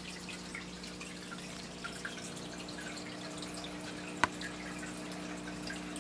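Aquarium water dripping and trickling over a steady low hum, with one sharp click about four seconds in.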